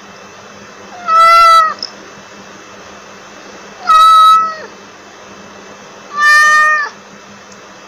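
Domestic cat meowing three times, each meow under a second long and evenly spaced about two and a half seconds apart, over a faint steady hiss and low hum.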